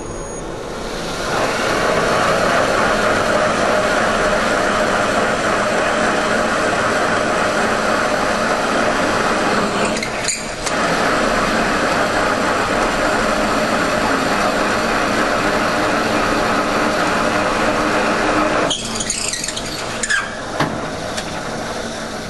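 Seat-and-guide machine spindle driving a core drill down an exhaust valve guide bore in a small-block Chevy cylinder head: a steady cutting noise, boring out the old guide to take a replacement false guide. It starts about a second and a half in, drops out briefly near the middle, and stops a few seconds before the end.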